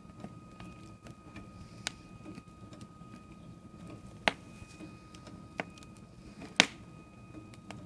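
Wood fire crackling, with four sharp pops, the loudest two near the middle and near the end, over a steady low rumble and a thin steady whine.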